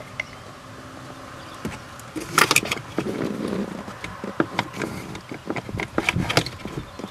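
Hands working a part loose inside the plastic HVAC heater box under a Ford Super Duty's dashboard: irregular clicks, taps and plastic rattling, starting about two and a half seconds in after a faint steady hum.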